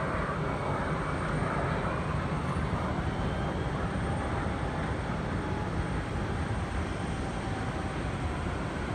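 Narrowbody twin-engine jet airliner's engines heard from afar as it rolls out on the runway after landing: a steady rushing rumble that eases slightly near the end.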